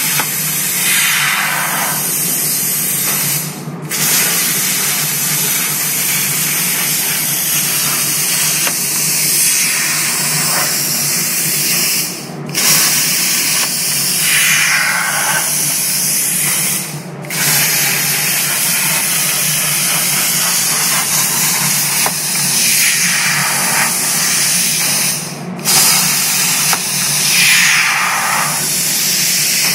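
CNC plasma torch arc hissing loudly as it cuts thin galvanised sheet steel. The hiss breaks off briefly about four times, as the arc stops between shapes and starts again.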